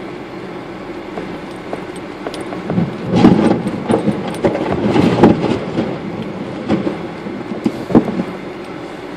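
A car driving over a muddy, rutted dirt road, heard from inside the cabin: a steady low rumble with bumps, knocks and rattles as the wheels drop through the ruts. The knocking is heaviest from about three to six seconds in, with one sharp thump near the end.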